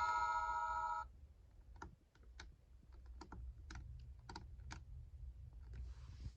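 A toy Disney castle's electronic chime tune, which cuts off about a second in, followed by a series of about nine light clicks.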